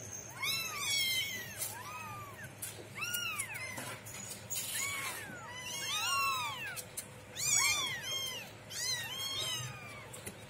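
Several young kittens mewing over and over, a quick string of short, high rising-and-falling mews, begging as they are syringe-fed.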